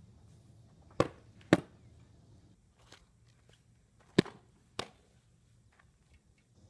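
Two fastpitch softball pitches, each heard as a pair of sharp smacks: a slap as the windmill pitch is released, then, about half a second later, the pop of the softball into the catcher's leather mitt.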